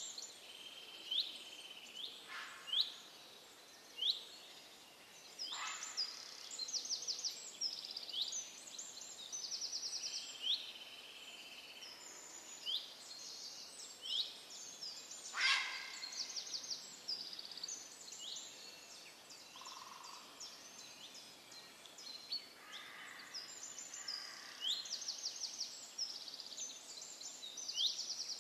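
Songbirds calling in forest: short high chirps, quick sweeping notes and rapid trills repeating over a faint steady background, with one sharper, louder note about halfway through.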